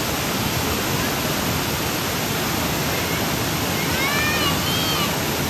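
Waterfall pouring over a rock ledge into a pool: a loud, steady rush of falling and splashing water.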